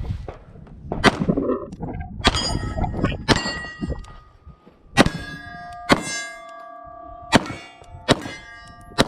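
Shots striking steel targets, about eight sharp hits, each followed by the ringing of the struck steel plate. The hits come in uneven spacing, roughly a second apart.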